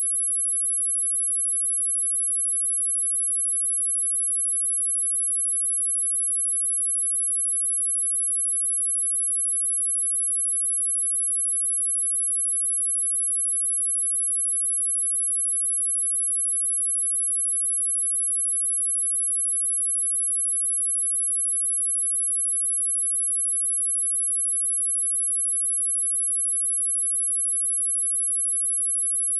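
A single steady high-pitched sine-wave test tone at 10806 Hz, held at a constant level without change.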